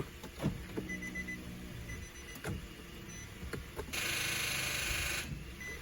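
A 2010 Infiniti G37X failing to start on jumper cables: a buzzing chatter sounds for about a second, starting about four seconds in, and the engine does not crank. The owner suspects a starter or battery problem.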